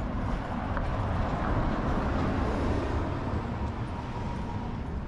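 City street traffic: a motor vehicle passes close by, its noise swelling to a peak about halfway through and then easing off over a steady background rumble.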